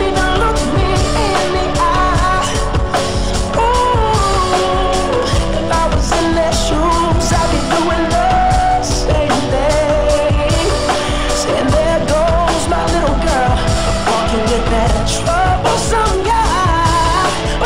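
Pop ballad playing as the soundtrack: a man singing over a band with a steady beat.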